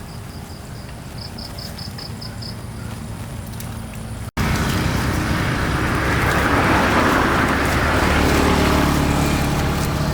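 Single-cylinder Kubota RD85 diesel of a hand tractor running steadily, with a row of six short high chirps about a second in. After a cut about four seconds in, the engine sounds louder, with a rushing noise over it.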